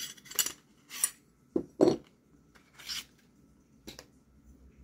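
Clear plastic packaging bag crinkling and rustling in short bursts as a pair of aluminum knife handle scales is unwrapped, with a light knock or two as the scales are handled.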